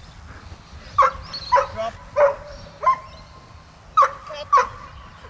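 A dog barking sharply six times, mostly in pairs about half a second apart.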